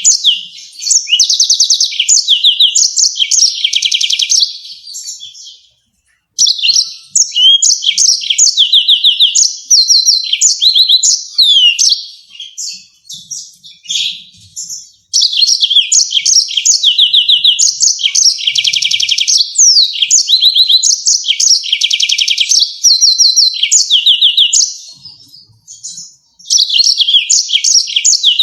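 Yellow-fronted canary singing long, fast phrases of rapid repeated notes and trills, with brief pauses between songs.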